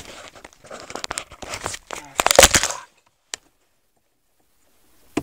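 Rustling, scraping handling noise with scattered clicks for about three seconds, then the sound drops out to dead silence, broken only by a single click.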